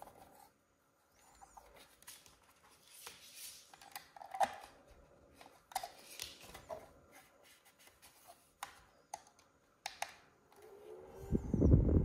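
Scattered small clicks, scrapes and rustles of a rechargeable mini desk fan being handled. Near the end a brief whine, then a loud low rush of air, as the fan's airflow hits the microphone.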